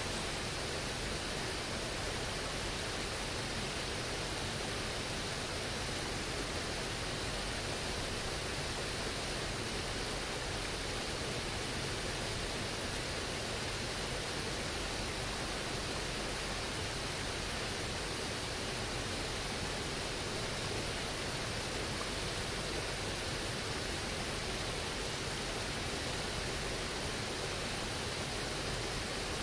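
The Elvo, a boulder-strewn mountain torrent, rushing over rocks and small cascades in a steady, even rush of water with no change throughout.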